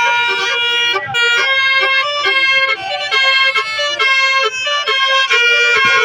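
A bus's multi-tone 'basuri' telolet horn playing a tune of quick, stepping notes.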